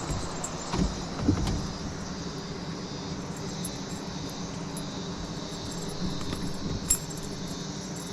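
Steady chirring of insects, with a low hum underneath and a few sharp knocks about a second in and again near the end.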